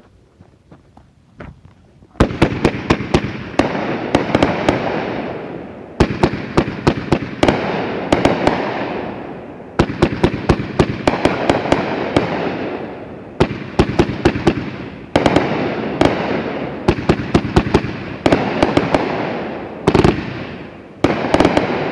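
A 30-shot 500-gram Megabanger Voodoo Devil's consumer fireworks cake firing brocade mines and brocade shells at a rapid pace. After a quiet start, the shots begin about two seconds in and come in quick clusters every second or two, each followed by a hissing, crackling tail.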